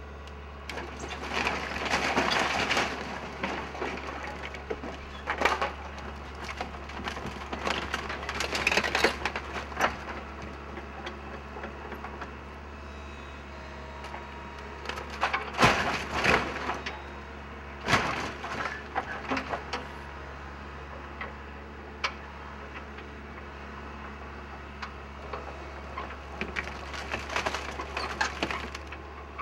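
Wooden building framing cracking, splintering and crunching in several bouts as it is torn apart in demolition, with sharp snaps among them, over a steady low hum.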